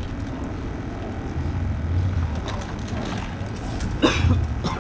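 Steady low rumble of wind on the microphone, with a brief voice about four seconds in.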